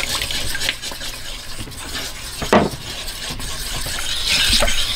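A metal fork stirring and clinking against a stainless steel mixing bowl of water and sourdough starter, with a sharper knock about halfway through and a denser scraping near the end.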